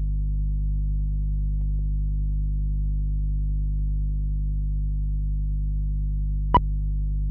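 Steady low electrical hum on an old film soundtrack, with a single short sync beep about six and a half seconds in, as the film leader runs.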